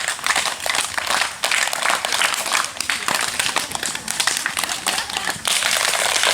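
A crowd clapping together through a group clap routine, the claps coming in uneven bursts; about five and a half seconds in it turns into steady, continuous applause.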